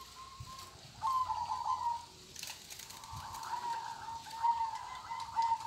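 Caged zebra doves (perkutut) cooing. One rippling phrase of quick notes at a steady pitch comes about a second in, and a longer phrase starts about three seconds in.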